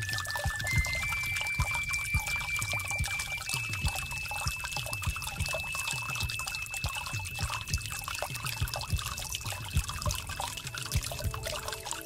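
Water pouring and trickling with many small drips, over a thin high ringing tone that steps up in pitch several times. Soft musical notes come in near the end.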